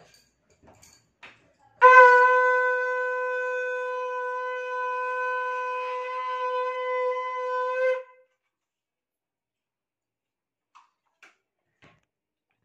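A conch shell (shankh) blown in one long, steady note of about six seconds. It starts about two seconds in with a loud attack, swells slightly near the end and cuts off sharply.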